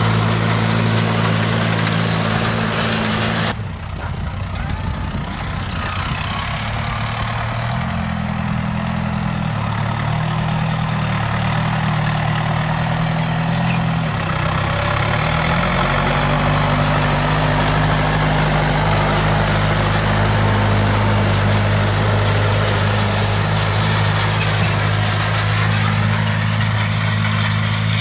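A John Deere tractor's diesel engine running steadily under load, pulling a mounted seed drill through tilled soil. The low engine drone shifts in tone a few times, with a brief dip in level about three and a half seconds in.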